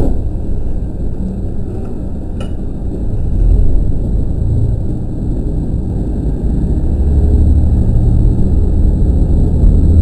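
KiHa 40 diesel railcar's engine running low, then building into a deeper, louder rumble from about seven seconds in as the train pulls away from a station. There is a single sharp click about two and a half seconds in.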